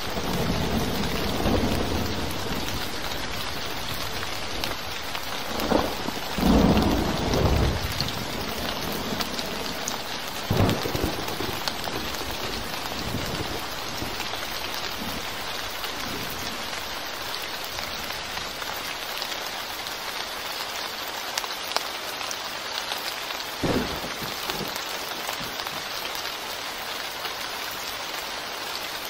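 Rain falling steadily on a concrete pavement, a constant hiss of drops on the wet, puddled surface. A few brief low rumbles come through it, the loudest about six to eight seconds in.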